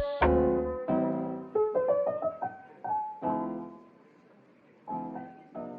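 Piano music: single notes and chords ring out and fade, thin to a brief lull about four seconds in, and pick up again about a second later.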